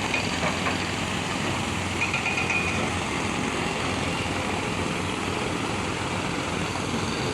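Diesel engine of heavy earthmoving equipment running steadily, with a brief high squeak about two seconds in.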